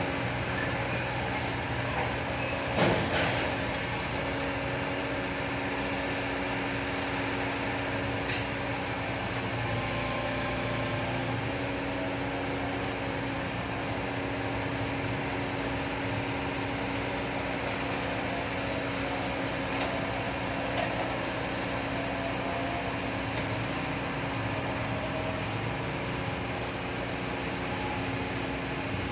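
Large hydraulic excavator's diesel engine running steadily, with one sharp knock about three seconds in.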